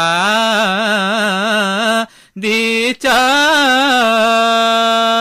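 A man singing the slow opening of an Uttarakhand hill folk song without accompaniment. He holds one long wavering, ornamented note, breaks for a breath a little after two seconds, then holds another long, nearly level note.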